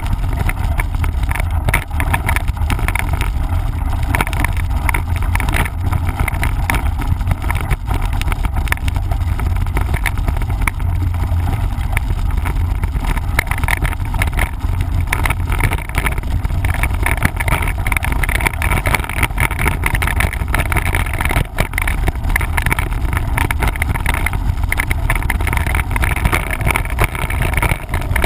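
Mountain bike riding a dirt trail: a steady rumble of wind on the microphone with frequent knocks and rattles from the bumps.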